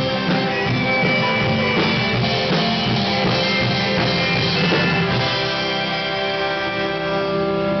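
Live rock band playing guitars and a drum kit. About five seconds in, the drum hits stop and a chord is held, ringing on.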